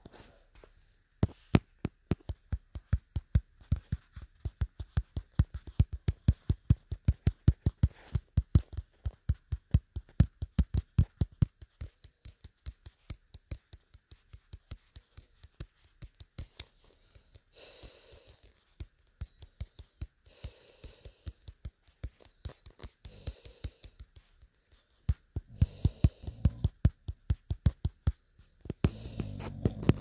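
Fidget slug toy clicking fast and evenly, about four to five clicks a second, loud for the first ten seconds or so and then fainter. Several short rasping bursts, each about a second long, break in from about two-thirds of the way through.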